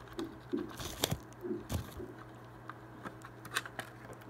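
Handling noise: scattered clicks and crinkles from bubble wrap packaging right against the microphone, over a steady low hum.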